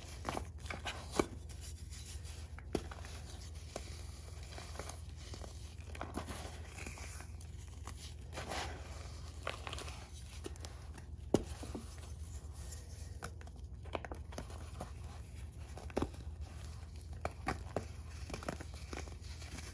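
Hands crushing and crumbling soft chalky blocks into loose powder: a steady gritty rustle broken by sharp crunches and snaps, a few of them much louder than the rest, over a faint low hum.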